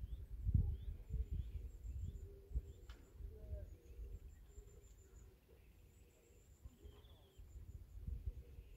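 A low rumbling noise over faint bird chirps, short rising calls about twice a second in the first few seconds, and a thin high insect buzz.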